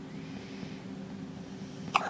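A baby hiccups once near the end, a short sharp catch over a steady low hum.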